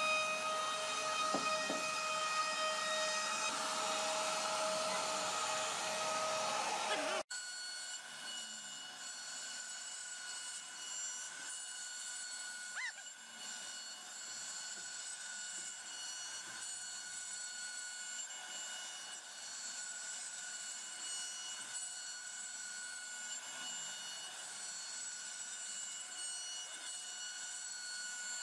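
CNC router spindle whining steadily as its router bit cuts recessed panels into a solid wood door. About seven seconds in the sound breaks off sharply and comes back quieter, with a single higher whine.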